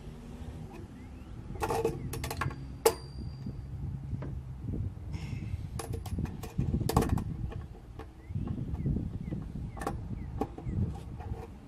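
Irregular clicks, knocks and scrapes of a sink pop-up drain body and its tailpiece nut being worked and tightened by hand and with channel-lock pliers. A low steady hum runs under the first few seconds.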